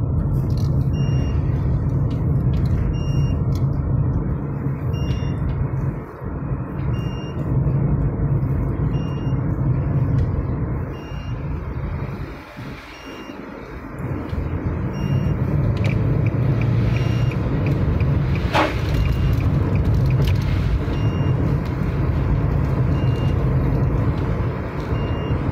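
Car engine and tyre noise heard inside the cabin while driving on a wet road, a steady low rumble that eases for a couple of seconds midway as the car slows. A faint short high beep repeats about every two seconds.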